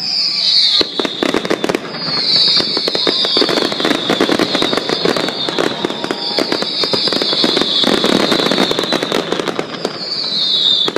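Fireworks display: aerial shells bursting in rapid, dense crackling and popping, with a high whistle falling in pitch that comes about four times.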